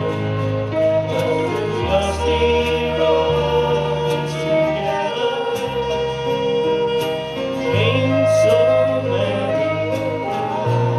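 Live band music: a man singing a slow ballad over strummed acoustic guitars, with low bass notes that change every couple of seconds.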